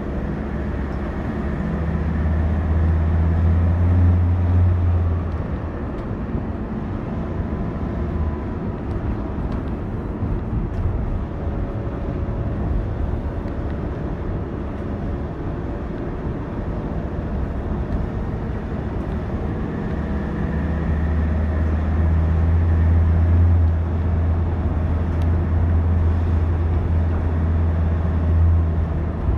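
Car running on a wet road, heard from inside the cabin: a steady hiss of tyres with a low engine drone that grows louder in the first few seconds and again from about twenty seconds in.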